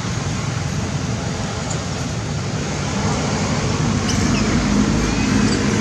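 Steady roadside traffic noise, with a low vehicle engine hum coming in about halfway through and growing a little louder. A few faint high chirps sound near the end.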